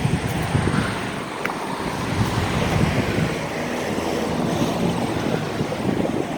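Wind buffeting the microphone: a steady rushing noise, heaviest low down, with a few faint clicks.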